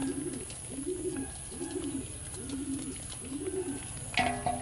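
A bird giving a series of about six low, soft calls, then a louder, harsher call near the end.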